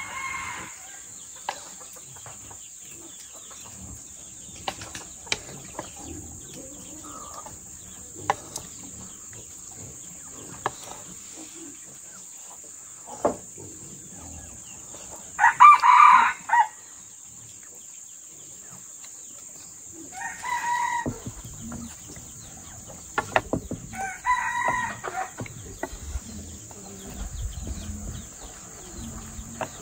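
Rooster crowing about four times, the loudest crow about halfway through, with scattered light clicks of chopsticks against a wooden plate.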